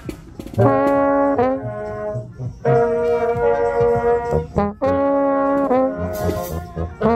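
Marching-band brass horns playing loud, held notes: a short blast about half a second in, then longer sustained chords. Several notes drop off in pitch as they end.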